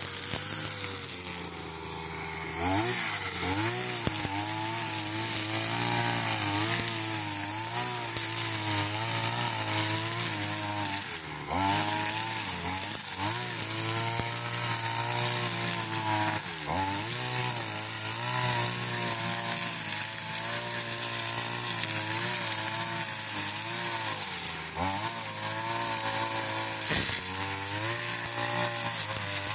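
String trimmer mowing grass with nylon line, its motor running steadily with its pitch wavering up and down and briefly dipping several times as it bites into the grass.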